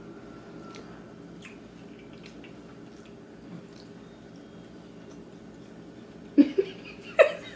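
Faint wet chewing and mouth clicks from someone eating a soft, jelly-fleshed rambutan, over a steady low room background. Two short voice sounds break in near the end.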